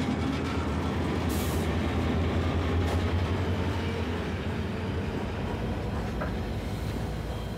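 Diesel locomotive of a heavy iron-ore train running as the train rolls along the track: a steady low engine drone under the rumble and noise of the wagons, with a short hiss about a second and a half in.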